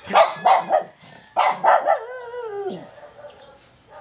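Pet dog barking in two quick runs of three short barks, then one drawn-out, howl-like bark that falls in pitch at the end.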